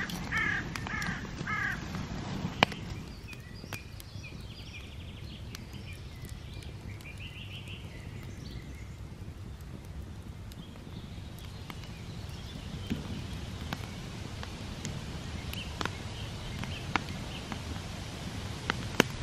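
A crow caws three times in quick succession, then smaller birds chirp faintly. Scattered light ticks run over a steady low outdoor background.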